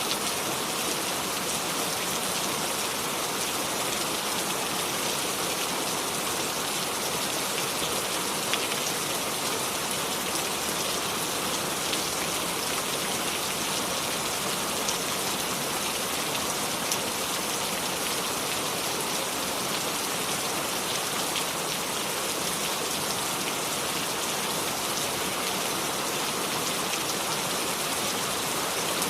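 Steady rain falling without thunder, a dense even hiss with occasional individual drop ticks.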